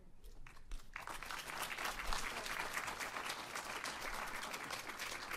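Audience applauding, picking up after a few scattered claps to steady, full applause about a second in.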